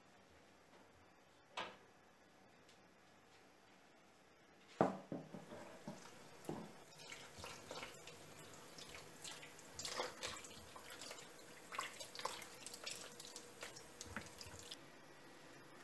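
Kitchen tap running into a plastic bowl while tomatoes are rinsed by hand, with splashing and small knocks of tomatoes against the bowl. It starts with a sharp knock about five seconds in and stops shortly before the end; before that there is only a single faint click.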